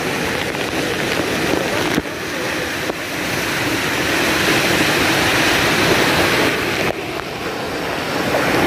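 Rushing water of a waterfall pouring into a river pool: a steady, loud rush that swells for a few seconds in the middle.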